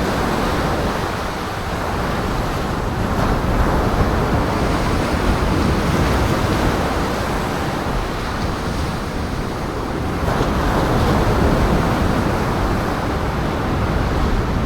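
Wind and waves breaking, a steady rushing noise that swells a little louder about ten seconds in.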